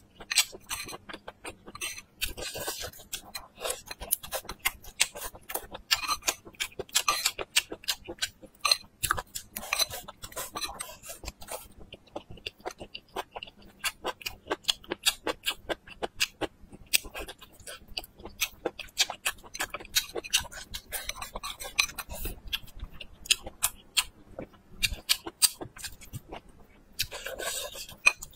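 Close-miked chewing of stir-fried bamboo shoots and cured pork: a dense, irregular run of small crunches and wet mouth clicks.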